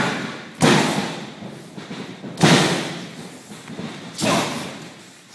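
Heavy thuds of two men grappling and trading blows in a boxing ring: four loud impacts, at the start, just over half a second in, about two and a half seconds in and about four seconds in, each dying away over about a second.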